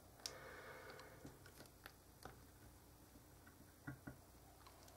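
Near silence with faint, scattered small clicks and ticks from hands squeezing out a nearly empty tube of heatsink transfer compound, two slightly louder clicks about four seconds in.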